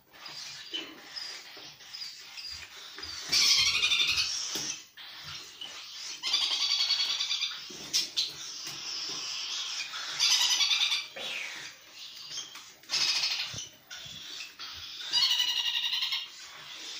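Hand-fed young parrots giving loud, rasping begging squawks in bursts of about a second, about five times, with quieter chattering between the bursts.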